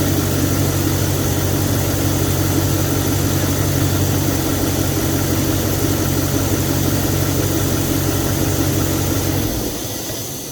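Audi RS5's 4.2-litre V8 idling steadily, with a hiss over the engine note; the hiss is the sign of a vacuum leak, first fixed by reconnecting a disconnected vacuum line. The sound fades out near the end.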